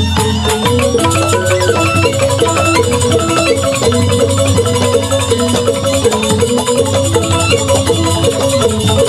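Balinese joged bumbung gamelan playing an instrumental piece (tabuh petegak). Bamboo xylophones strike fast, dense interlocking note patterns, with bamboo suling flutes playing the melody over them, steadily throughout.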